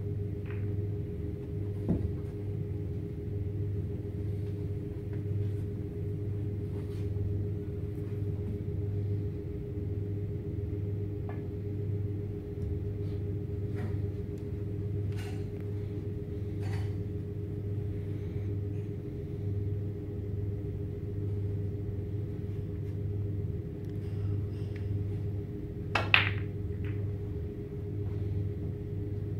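Snooker balls clicking against one another: a click about two seconds in, a few faint ones in the middle, and the loudest, sharpest one about 26 seconds in. Under them runs a steady low hum of the room.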